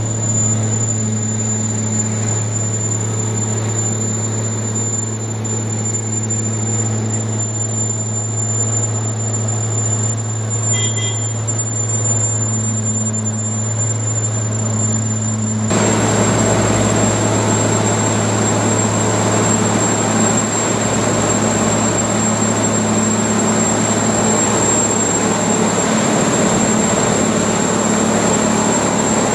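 Diesel engine of a Duomatic 08-32 track tamping machine running steadily with a low, even hum. About halfway through, a broad hiss of noise jumps up abruptly over the hum.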